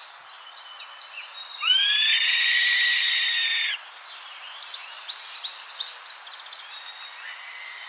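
Bird calls played by a garden sound installation that turns plant-sensor readings of wind and light into bird sounds. One loud call about two seconds long slides up at its start and then holds, followed by a quick run of short chirps and a softer drawn-out call near the end.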